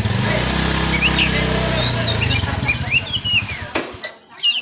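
A songbird giving quick whistled chirps and rising-and-falling notes, over the steady low sound of an engine running that fades out near the end; a sharp click comes just after it.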